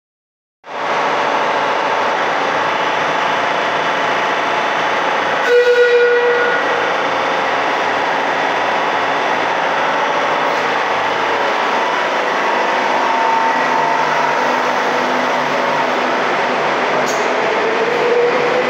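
Madrid Metro Serie 5000 electric train in an underground station, with a loud steady running noise. A short horn note sounds about five seconds in. Near the end a rising motor whine starts as the train pulls away.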